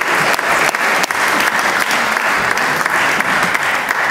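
Audience applauding: many hands clapping in a dense, steady stream, easing slightly near the end.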